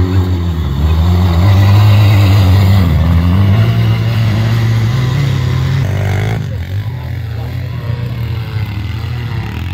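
Quad bike (ATV) engine revving hard as it accelerates and spins its rear wheels through snow, the pitch rising and falling. About six seconds in, the sound changes abruptly to a quieter, steadier engine note.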